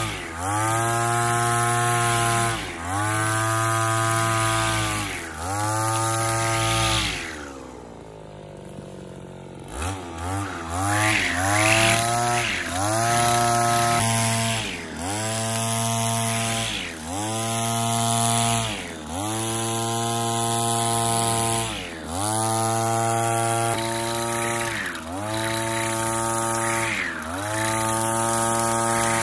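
Petrol brush cutter with a trimmer head cutting grass, its engine revved to full throttle in repeated bursts of about two seconds, dropping briefly between each. About a quarter of the way in it falls back to idle for a couple of seconds, then revs up again.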